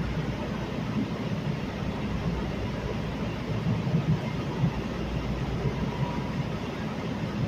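Steady low rumble of a Los Angeles Metro K Line light-rail car in motion, heard from inside the car.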